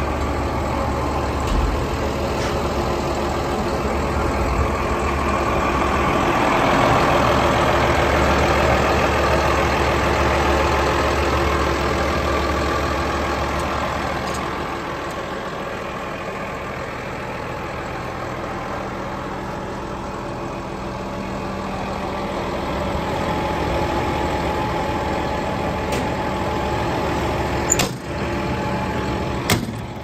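Komatsu D65PX-18 bulldozer's six-cylinder diesel engine idling steadily, louder for a while and then softer, with two sharp clicks near the end.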